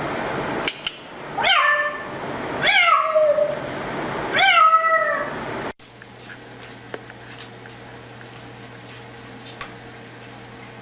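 Three loud meows, each sliding down in pitch, over a steady rushing background. A little over halfway through the sound cuts off abruptly to a quieter steady hum with a few faint clicks.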